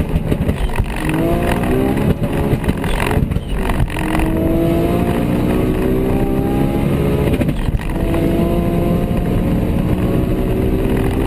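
Turbocharged high-performance car engines pulling hard at full throttle, their pitch climbing steadily and dropping back at upshifts about three seconds in and again near eight seconds.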